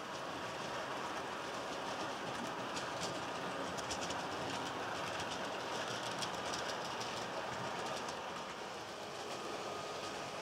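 Model train running along the track, its wheels clicking rapidly over the rail joints against a steady running hiss and a faint steady whine. The clicking is thickest in the middle.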